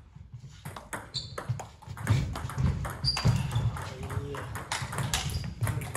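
Table tennis ball clicking sharply off the bats and bouncing on the table during a rally, some hits with a short high ping.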